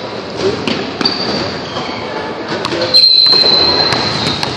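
Referee's whistle blown once about three seconds in, a single steady shrill tone held for just over a second to stop play, over the echoing noise of a gym during a basketball game.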